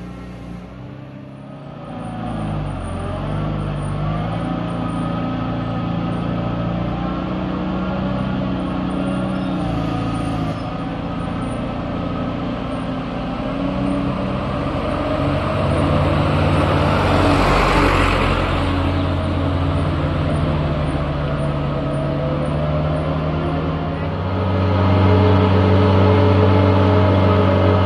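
Diesel engine of a truck fully loaded with sugarcane, pulling up an incline. The engine note shifts in steps, a noisier swell rises and fades around the middle, and the engine is loudest near the end as the truck runs close by.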